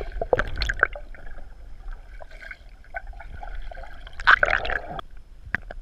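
Muffled underwater splashing and bubbling picked up by a submerged camera, with a short burst just after the start and a louder churning burst about four seconds in as a swimmer moves through the water close by.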